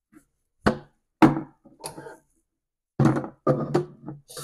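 Plastic water tank of a gravity pet water station knocking and clunking as it is lifted off its base and set down in a kitchen sink, about six separate knocks. Just before the end the kitchen tap turns on and water starts running.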